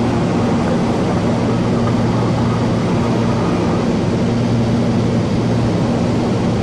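Cessna light aircraft's engine and propeller droning steadily in flight, a constant low hum over a broad rushing noise.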